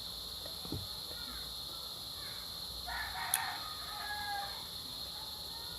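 Birds calling in the background, with short calls throughout and a louder call about three seconds in, over a steady high hiss.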